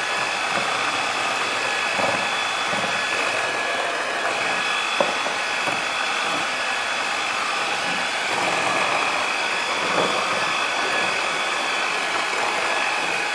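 Electric hand mixer running steadily, its twin beaters whisking flour into a thin egg-and-milk batter in a glass bowl, with a sharp click about five seconds in.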